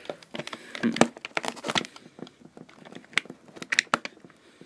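Box cutter slicing through the packing tape along a cardboard box seam: a run of irregular scratchy clicks and crackles.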